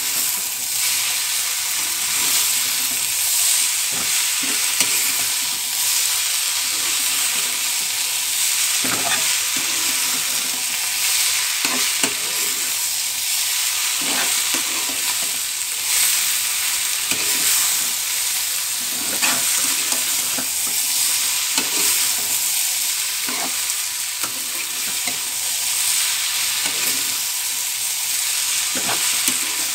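Flat beans (shim) and fresh coriander frying in a small black iron karahi: a steady sizzle, with a metal spatula scraping and knocking against the pan every second or two as the vegetables are stirred. The dish is near done.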